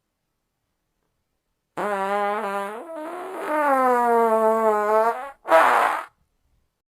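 Fart sound effect: a long, pitched fart starting about two seconds in, its pitch wavering and dipping for about three and a half seconds, then ending in a short, breathy sputter.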